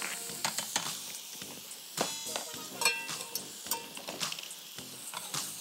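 Diced peppers, tomato and onion sizzling in butter in a frying pan, with a spatula stirring and clicking against the pan.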